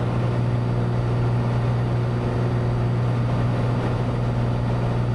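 Cessna 182's piston engine and propeller droning steadily in flight, heard inside the cabin as a constant low hum.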